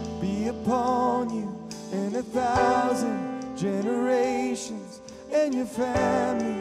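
Live worship band playing a slow song, a singer's held, wavering notes carried over acoustic and electric guitar, keyboard and drums.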